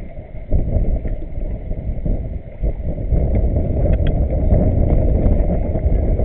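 Wind rumbling on the microphone mixed with water rushing and slapping, from a camera held low over the water on a moving boat, louder from about three seconds in.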